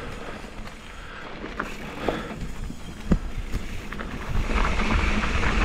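Mountain bike rolling down a rocky, gravelly dirt trail: tyres crunching over loose stones, with a few sharp knocks as the bike hits rocks. Wind rushes over the microphone, growing louder about four seconds in as the bike picks up speed.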